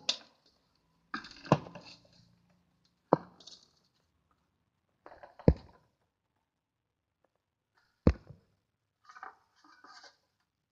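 Hands kneading wet boiled-rice paste with paint in a stainless steel bowl: about five sharp knocks on the steel bowl at irregular intervals, with softer noisy sounds of the paste being worked in between.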